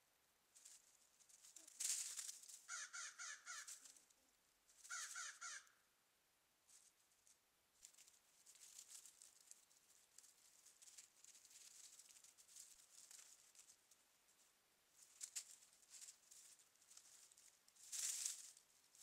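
Crows cawing in two quick runs of calls a few seconds in, with rustling in dry leaf litter. A loud flurry near the end comes as a crow flaps up off the leaves. The footage plays at double speed.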